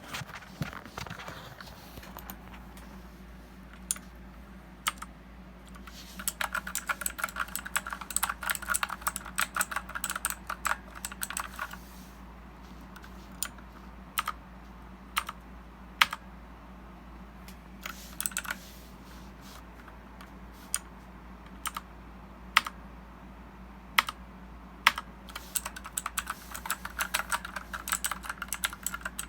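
Redragon K552 mechanical keyboard with clicky blue switches being typed on. A fast run of crisp key clicks lasts several seconds, single keystrokes are scattered in between, and another quick run comes near the end.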